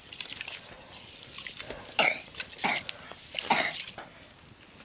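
Three short, harsh vocal bursts a little under a second apart, about two seconds in, then at two and a half and at three and a half seconds.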